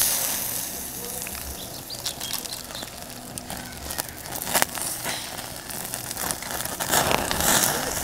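Wood crackling and popping in a small mini fire pit, scattered sharp clicks over a steady hiss, with one sharp knock about four and a half seconds in and a louder rush of noise near the end.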